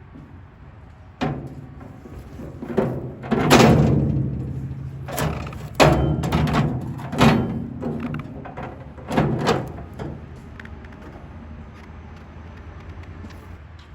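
Metal clanks and knocks, about eight in all, some ringing on briefly, as sheet-metal parts of a chipper shredder are handled and set in place. The loudest comes about three and a half seconds in.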